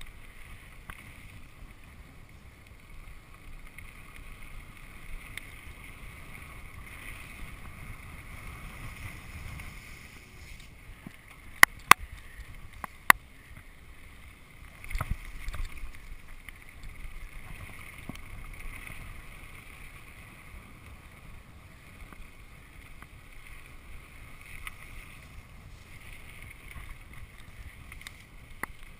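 Mountain bike riding fast on dirt singletrack: steady rushing and rattling of tyres and bike over the trail, with wind on the microphone. Three sharp clicks come about twelve to thirteen seconds in.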